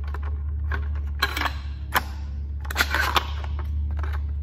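Clicks and clacks from a 3D-printed China Lake replica pump-action grenade launcher as its action is worked by hand to feed a 40mm round up into the chamber. Several sharp knocks come about one, two and three seconds in, over a steady low hum.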